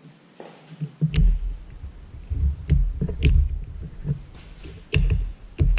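Sharp metal clicks of pliers and a snap ring being worked into the bore of a Bobcat cooling-fan angle drive housing, with dull knocks and bumps as the part is handled. The clicks are irregular, about half a dozen, and start about a second in.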